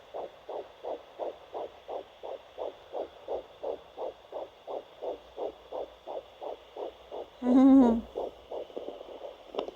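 Fetal heartbeat at about 180 beats per minute through a Sonoline B handheld fetal Doppler: a fast, even pulse about three times a second. About seven and a half seconds in, a loud, short hooting tone with a wavering pitch cuts across it for about half a second.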